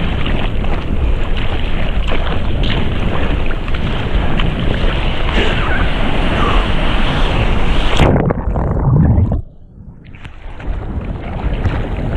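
Ocean surf and wind buffeting a body boarder's camera microphone in choppy water. About eight seconds in the sound suddenly turns muffled and drops away, as when the camera goes under the water, then builds back up near the end.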